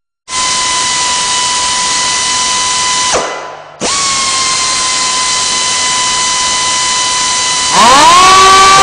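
Pneumatic air tools run free with no load. A high, steady whine runs about three seconds, falls in pitch as the tool spins down and stops. About half a second later it starts again for about four seconds. Near the end a second, louder air tool starts up, its whine rising in pitch as it comes up to speed and settling lower.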